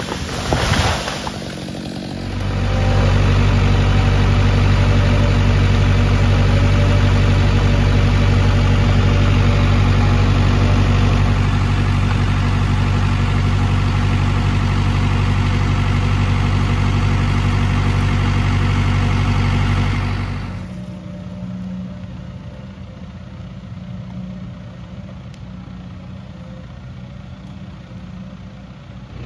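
A brief crash of a felled tree at the start, then a heavy logging machine's diesel engine running loud and steady, heard from the operator's seat. About 20 seconds in it gives way to the quieter engine of a skidder dragging logs.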